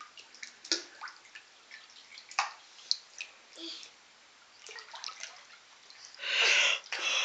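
Small splashes and drips of water in a shallow inflatable paddling pool, stirred by a toddler's hands and body, with a longer, louder splash about six seconds in as he lunges forward into the water.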